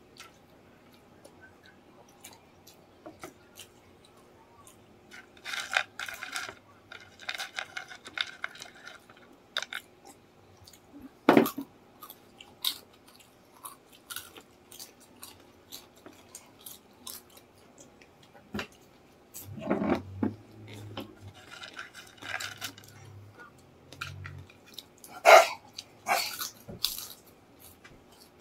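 Close-up chewing and crunching of crispy fried chicken skin and chicken feet adobo, with irregular short clicks and crackly bites; the sharpest crunches come about a third of the way in and again near the end.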